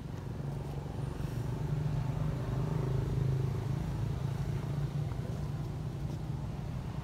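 Low engine rumble, as of a motor vehicle running, swelling over the first couple of seconds and easing a little after about five seconds.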